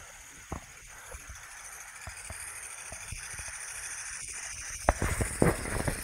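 Footsteps and rustling on forest-floor leaf litter: a few scattered light clicks, then louder irregular crunching steps from about five seconds in. A steady high-pitched chorus of night insects runs underneath.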